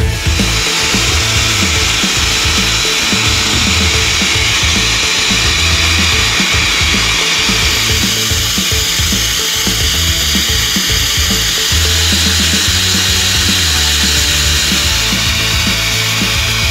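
Pet grooming dryer blowing steadily as a steady high-pitched rushing hiss, over background music with a low beat.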